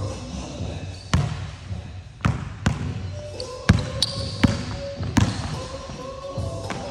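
A basketball being dribbled hard on a hardwood gym floor. There are about seven sharp bounces at an uneven pace as the player works the ball through a dribble move.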